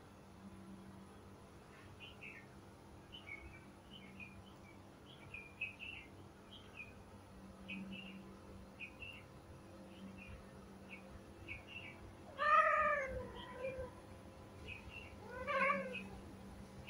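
Kitten mewing: a long run of short, high-pitched squeaky mews, then two louder, longer meows, one about twelve seconds in and one near the end.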